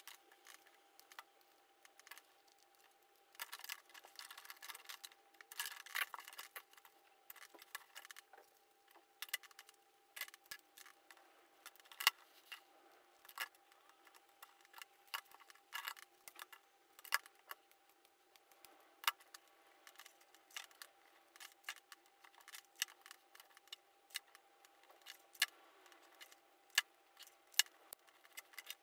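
Scissors cutting thin grey cardboard: irregular sharp snips and clicks, with cut pieces handled and set down on a cutting mat.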